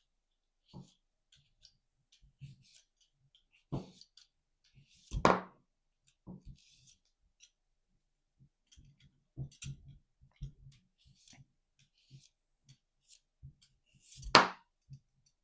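Kitchen knife slicing cucumber and pepperoncini on a cutting board: irregular soft taps and clicks of the blade meeting the board, with two louder knocks, one about five seconds in and one near the end.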